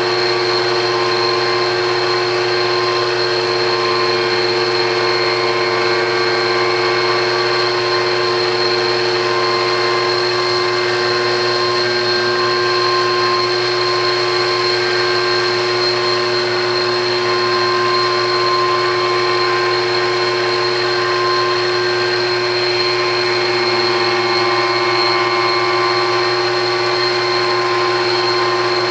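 Horizontal cutting frame on a rose engine lathe, its motor-driven cutter spinning and cutting a rosette pattern into the end grain of a wooden workpiece. A steady machine whir with several fixed pitches, unchanging in level.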